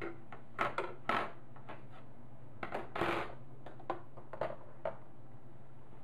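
Foil-lined metal baking sheet set down on a kitchen counter: a string of short clatters and aluminium-foil crinkles, the longest about three seconds in, then a few softer rustles as oven mitts are pulled off. A steady low hum runs underneath.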